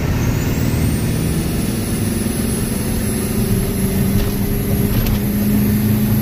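Ford 7.3 Powerstroke V8 turbodiesel at full throttle, accelerating hard from highway speed, heard from inside the cab. The KC S300 turbocharger's high whine climbs steeply in the first second and then holds high and steady over the engine's low drone.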